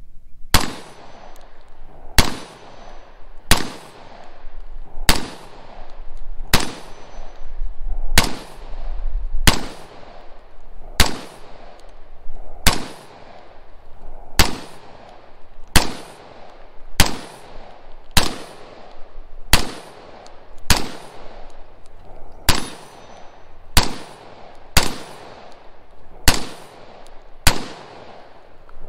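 American Tactical Omni AR-15 rifle fired semi-automatically: about twenty single shots, evenly paced roughly a second and a half apart, each trailing off in a short echo.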